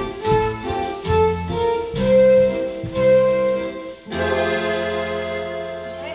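Instrumental music with a bouncing rhythm of short notes. About four seconds in it changes to a long held chord that fades.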